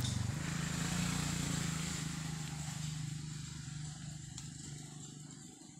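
Engine of a motor vehicle, a steady low drone that fades away over the second half.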